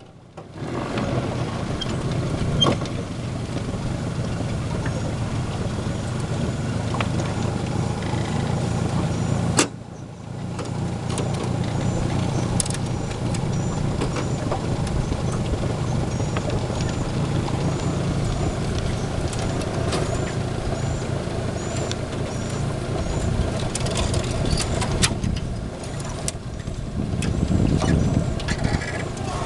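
An engine running steadily with a low hum, with a sharp click and a brief drop in level about ten seconds in.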